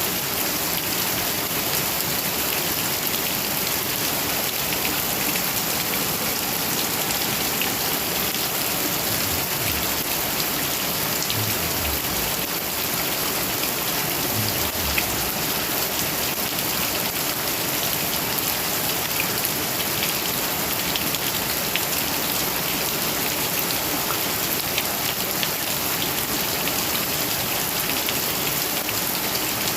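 Heavy rain falling steadily: a dense, even hiss of downpour with scattered individual drop splashes.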